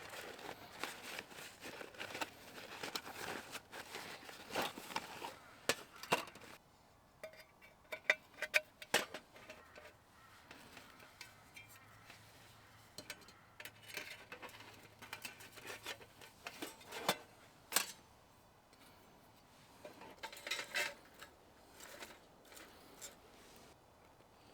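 Irregular clicks, clinks and rustling of objects being handled, busiest in the first six seconds and again about twenty seconds in.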